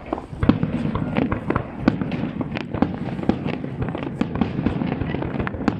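Fireworks display: aerial shells and low-level fireworks going off in quick succession, many sharp bangs and crackles a second with no gap.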